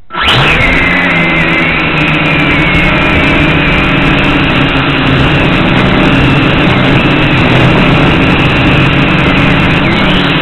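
Electric motors and propellers of a small radio-controlled flying craft, heard loud and close from its onboard camera. The motors spin up at the very start, then run as a steady high whine that wavers in pitch as the throttle changes, dipping briefly near the end and rising again.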